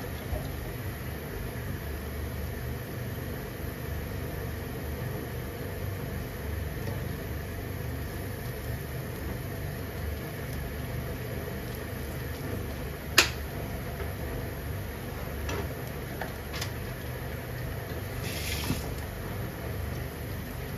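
Steady low hum of running kitchen equipment, with a sharp click about thirteen seconds in, a few fainter clicks after it and a short hiss near the end.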